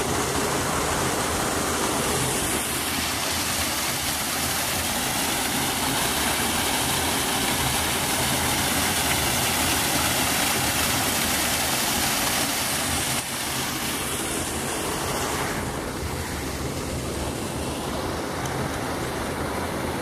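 Steady rush of a small waterfall pouring and splashing into a shallow stream, dropping slightly in level about two thirds of the way through.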